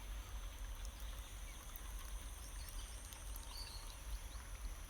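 Faint outdoor background: a steady low rumble with a few steady high-pitched tones above it and scattered faint ticks. A short chirp comes about three and a half seconds in.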